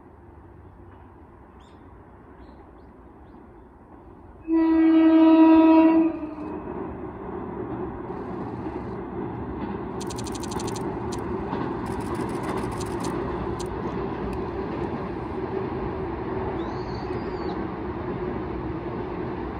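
JR 185-series electric train sounds its horn once, a single blast about a second and a half long, about four and a half seconds in. It then runs on with a steady rumble as its fifteen cars cross a steel girder bridge.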